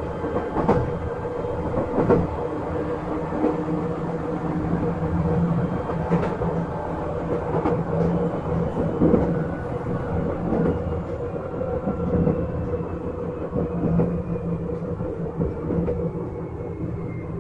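Izukyu 8000 series electric train running, heard from inside the car: a steady rumble of wheels on rail with a low hum and occasional sharp clacks over rail joints. A faint whine falls in pitch over the last few seconds.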